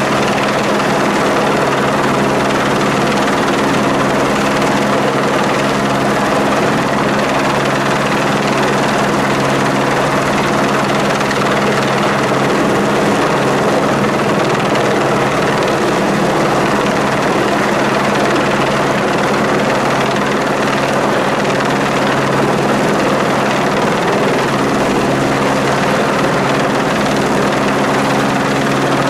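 Helicopter hovering overhead with a signal slung beneath it on a long line, its rotor and engine running steadily: a low hum of a few held tones under an even rushing noise.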